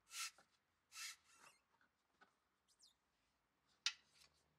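Faint handling noises: a few short scuffs in the first second and a half, and a sharper click near the end.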